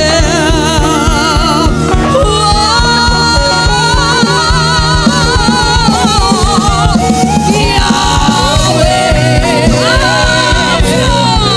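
Gospel song: sung vocals holding long notes with vibrato over a band with a steady drum beat.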